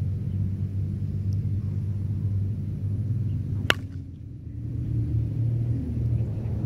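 A softball bat striking a pitched softball: one sharp crack about three and a half seconds in, the loudest sound here, over a steady low rumble.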